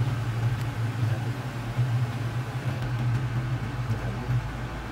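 Toyota Tacoma's engine idling, a steady low hum heard from inside the cab.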